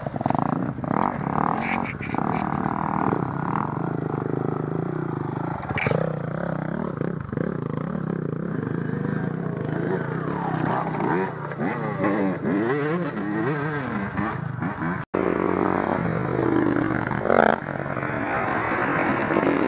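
Enduro dirt-bike engine riding off-road, its pitch rising and falling again and again as the throttle is worked, with knocks and rattles from the rough ground. The sound cuts out for an instant about fifteen seconds in.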